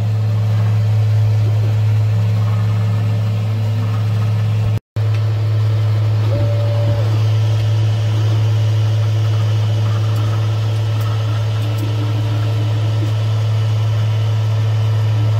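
Tronxy XY2 Pro 3D printer running: a loud steady low hum, with faint short tones shifting in pitch over it. The sound cuts out for a moment about five seconds in.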